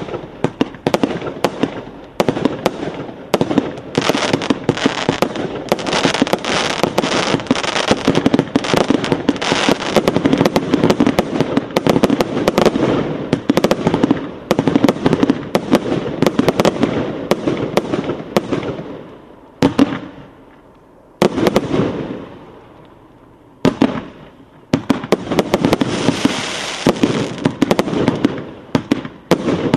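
Kombi 3 fireworks battery firing: a rapid, dense string of shots and crackling star bursts. It lulls twice about two-thirds of the way through, each lull broken by a single shot, then ends in another thick flurry of crackle.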